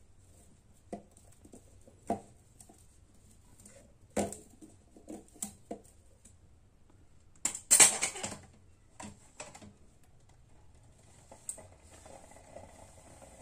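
Enamel mug handled with a cloth and set onto a spirit stove's metal wind shield and pot stand: a scatter of light knocks and clinks, the loudest cluster about eight seconds in.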